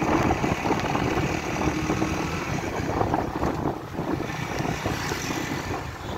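Motorcycle engine running under way as the bike is ridden along a road, mixed with wind buffeting the microphone.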